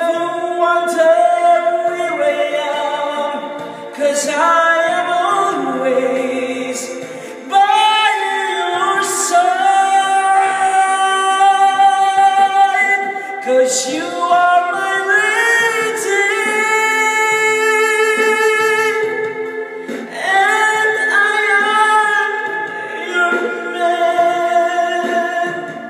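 A man singing a slow love ballad into a handheld microphone over backing music, holding long, gliding high notes.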